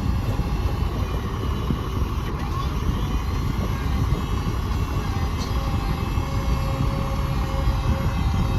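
Heavy truck diesel engine running steadily with a low rumble, joined about five seconds in by a steady mid-pitched whine.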